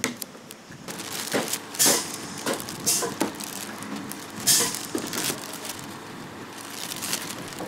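Thin plastic bag crinkling and plastic bottles knocking together as capped bottles are handled and packed into the bag. There are irregular rustles and clicks, with several louder crinkles.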